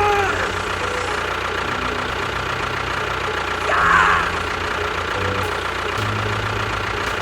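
Vehicle engine running steadily, its low pitch shifting up and down in steps every second or two, with a brief high squeal about four seconds in.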